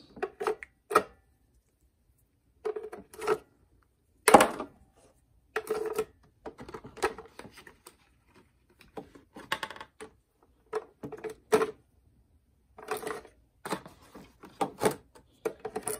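Batteries clinking together and knocking into the plastic battery compartment of a portable radio, with clicks and rattles from its plastic case, in irregular bursts; a sharp knock about four seconds in is the loudest.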